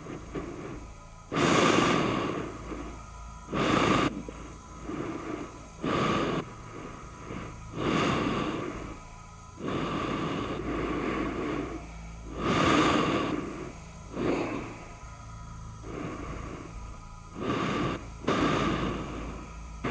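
Heavy, uneven human breathing, in and out about once every one to two seconds, over a faint steady high tone and a low hum.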